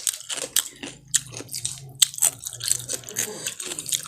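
Biting into and chewing crunchy food, with many quick, irregular crunches.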